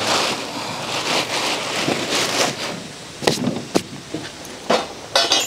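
Gear being handled and loaded: a few seconds of rustling and scraping, then several sharp knocks and a short metallic clatter near the end.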